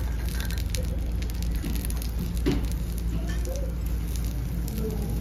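Small wood fire under a miniature clay stove crackling with many faint, sharp pops, while a small spoon stirs drumstick leaves in the clay pot.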